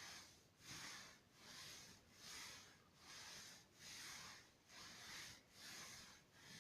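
A kitten breathing fast and evenly close to the microphone, a soft hissing breath about one and a half times a second.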